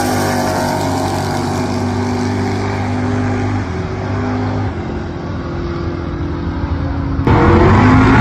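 Muscle-car drag racing engines running hard down the strip, a steady drone that eases off somewhat through the middle. About seven seconds in it cuts abruptly to a louder car at the start line doing a burnout, engine revving and tires spinning.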